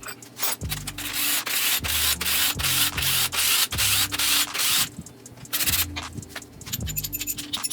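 Rough scraping and rubbing on a hard surface: a few short strokes, then a long continuous stretch of scraping, then more short strokes.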